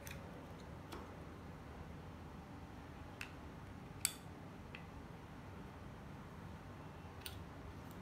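Faint plastic clicks and snaps as the battery cover of a small plastic door alarm unit is worked loose and pried off, about half a dozen in all, the loudest a sharp snap about four seconds in.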